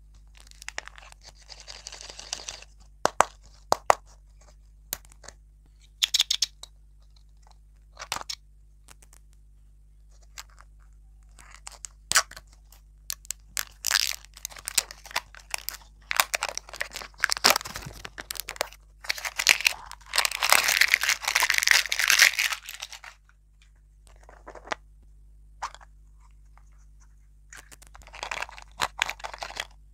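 Plastic film wrapper on a toy-surprise lollipop ball being torn and peeled off by hand, crinkling in irregular bursts between sharp clicks of the hard plastic shell. The crackling is loudest for a few seconds past the middle.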